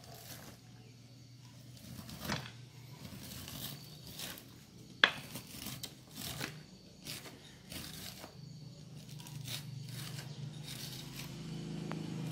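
Knife scraping kernels off fresh corn cobs in irregular strokes, kernels dropping onto a metal tray, with one sharp knock of the blade about five seconds in. A low steady hum runs underneath.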